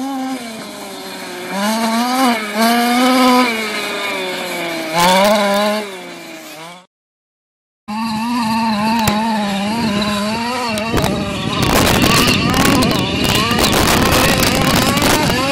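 Small two-stroke engine of a 1/5-scale gas RC trophy truck revving up and down as it drives, its pitch rising and falling again and again. The sound cuts out for about a second near the middle, and from about eleven seconds in a loud rough, crackling noise covers the engine.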